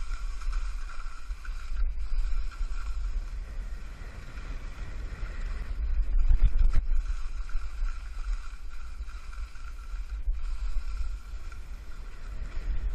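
Wind buffeting the microphone of a skier's camera during a descent over snow, a fluctuating low rumble, with the hiss of skis sliding over the snow; it swells about six seconds in.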